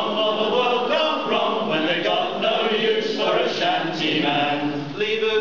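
A group of men singing a sea shanty together, several voices at once.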